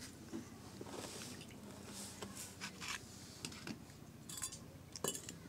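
Faint, irregular clinks and scrapes of kitchen utensils against dishes.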